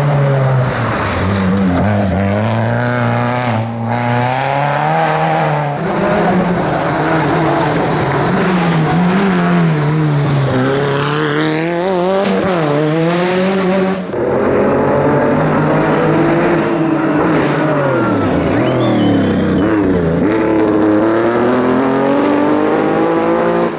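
Rally car engines revving hard and falling back again and again as the cars are slid sideways, with some tyre squeal. The sound changes abruptly twice, about six and fourteen seconds in, as a different car takes over.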